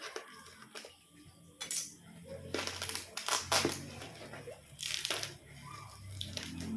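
Irregular sharp clicks and clattering knocks from objects being handled, over a low hum.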